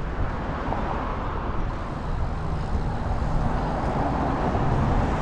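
Steady street traffic noise: cars running on the road alongside, with a low rumble throughout.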